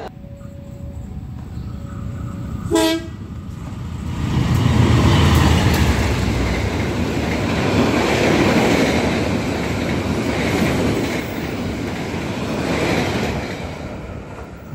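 A short train horn toot, then a passenger train running through the station on the near track: a loud rush of wheel and rail noise that builds, holds for several seconds as the carriages pass, and fades near the end.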